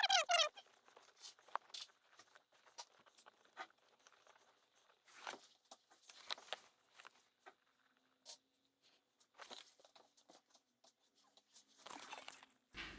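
Work-gloved hands handling insulated wires and shrink tubing: faint rustling and scattered small clicks, opening with a brief squeak that falls in pitch.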